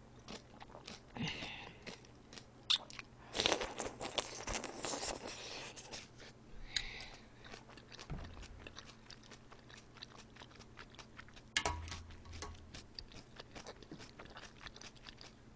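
Close-miked eating: broth sipped from a ladle and udon noodles chewed, with soft wet mouth sounds and many small clicks, and a longer slurp a few seconds in.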